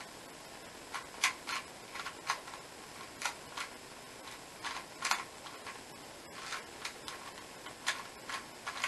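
Plastic 2x2 Rubik's cube being turned fast during a timed speed solve: irregular sharp clicks and clacks of the layers snapping round, a few a second, some in quick pairs.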